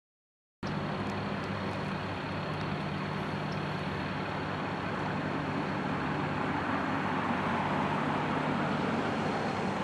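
Steady motor-vehicle noise, like an idling engine or passing road traffic, with a low steady hum. It cuts in abruptly out of silence about half a second in.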